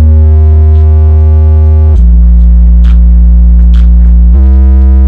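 Subwoofer speaker cabinets driven by a mini amplifier board play loud, steady low bass tones, held notes that step down in pitch about two seconds in and back up near the end. The seller says he is pushing the mini amp hard and it does not cut out.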